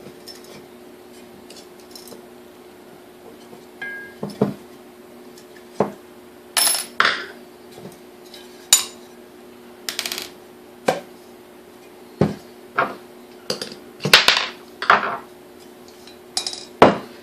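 Small metal parts and tools clinking and clattering on a workbench while a KitchenAid A9 coffee mill's motor housing is taken apart: about fifteen irregular clinks and knocks, some with a short metallic ring, starting about four seconds in.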